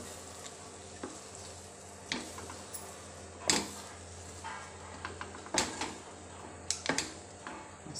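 Spatula scraping and knocking against a nonstick kadhai as a thick mango barfi mixture is stirred, several separate knocks over a low steady hum. The mixture has thickened into a ball that comes away from the pan.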